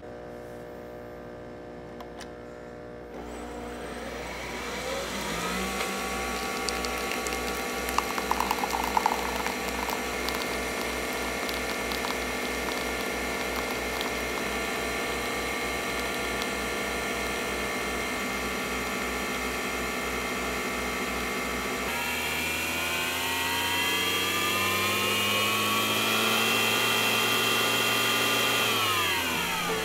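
Nespresso VertuoLine capsule machine brewing: after a low hum, its motor spins up about three seconds in to a steady whir with a rapid pulsing underneath while the coffee pours. Around two-thirds of the way through it speeds up to a higher, louder whine, then winds down at the very end.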